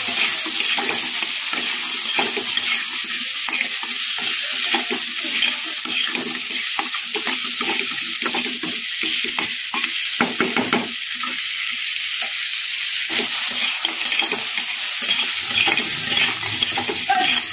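Crab pieces with onion and garlic frying in hot oil in a wok: a steady sizzle, with a metal spatula scraping and knocking against the pan as they are stirred.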